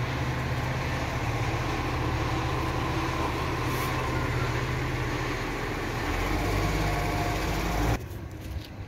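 Diesel engine of an Iveco Acco side-loader garbage truck idling steadily close by. The low hum shifts and deepens about six seconds in, then drops off sharply near the end.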